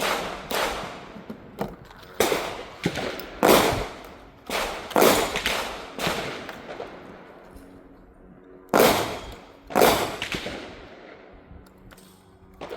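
A string of revolver shots from a .410 revolver shotgun, several fired about half a second apart, each with an echoing tail. After a pause of a couple of seconds, two more shots follow about a second apart, then fainter ones.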